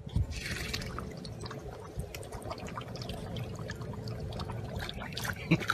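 A husky pawing and splashing at the water in a metal bowl, with sloshing broken by many small splashes.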